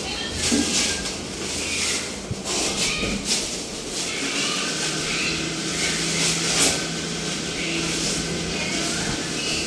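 A 2 HP electric air compressor running with a steady hum, with hissing that comes and goes.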